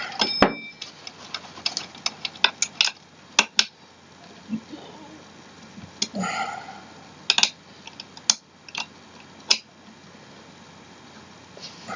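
Irregular sharp clicks and light knocks of metal hardware and chair parts being handled and screwed together during office-chair assembly, with a short scuffing sound about six seconds in.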